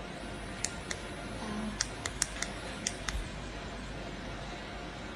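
About eight sharp clicks, several in quick succession, over a steady background hiss, then only the hiss for the last couple of seconds: a computer being clicked to step through presentation slides.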